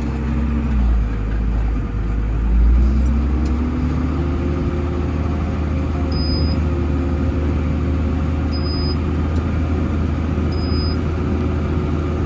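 Tractor engine running under load while pulling a round baler through straw. Its note sags about a second in, climbs back and then holds steady, with a few short high beeps in the second half.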